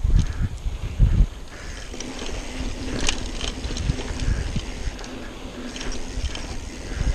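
Mountain bike running down a dry dirt trail: tyre roar and the frame and parts rattling over bumps, with scattered clicks. There are two heavy low thumps, one at the start and one about a second in.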